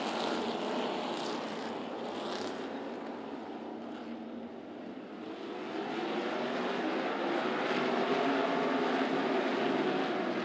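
A pack of NASCAR K&N Pro Series stock cars' V8 engines racing at speed. The sound eases off a little near the middle, then grows louder and rises in pitch as the field accelerates.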